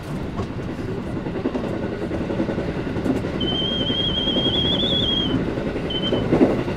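A JR West Yamatoji Rapid Service train running, a steady rumble of wheels on the track. A thin, high, steady whine comes in about halfway through and returns briefly near the end.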